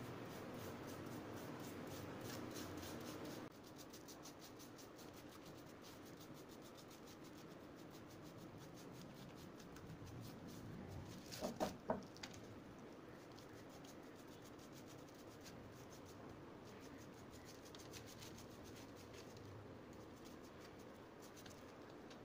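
Faint rubbing and scratching of a paintbrush spreading black paint over a rough cast-concrete block. A little past halfway, three quick sharp knocks sound close together.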